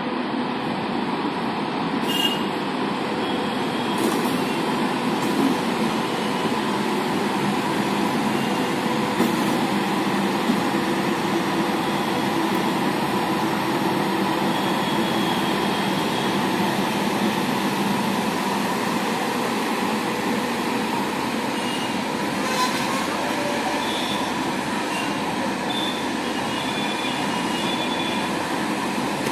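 Indian Railways WAP-7 electric locomotive running light at low speed, a steady hum with a faint whine from its blowers and traction equipment. A few sharp clicks break in, about two, four, nine and twenty-two seconds in.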